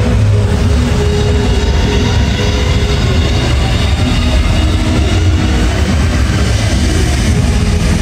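Loud electronic dance music from a large festival PA system, heard from within the crowd. The heavy, steady bass dominates the mix and sustained synth tones sit above it.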